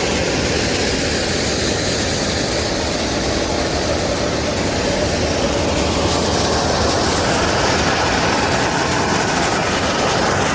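Engine of a 1,250 GPM fire pump running steadily under load, with water gushing at high pressure from an open hydrant.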